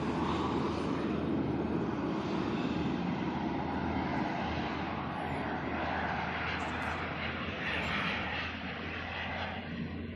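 Model Concorde flying past overhead, its engines making a steady rushing noise that eases slightly near the end.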